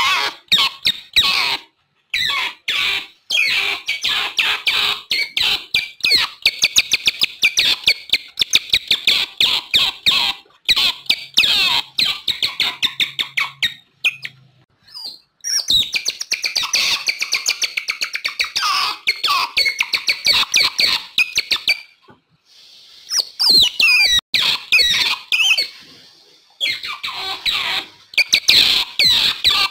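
Otters calling with rapid, dense runs of high-pitched chirps and squeaks, broken by a few short pauses.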